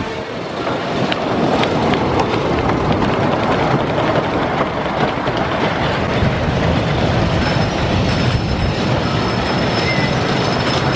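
A Custom Coasters International wooden roller coaster train rolling along its wooden track out of the station and up the lift hill, a steady heavy rumble with a run of faint clicks. A steady high whine joins about two-thirds of the way through.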